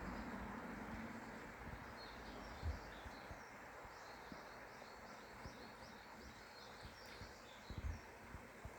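Steady rush of a valley stream with a small bird chirping over it in a quick run of short, high notes, and a couple of low bumps.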